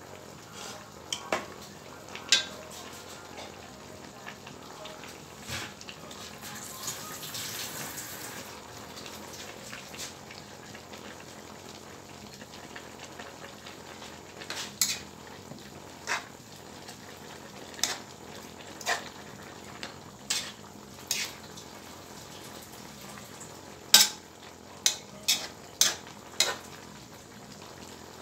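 A spatula scraping and clinking against a metal wok while mixed vegetables stir-fry, over a steady sizzle. The sizzle swells for a couple of seconds early on, and the sharp clinks come scattered, then several in quick succession near the end.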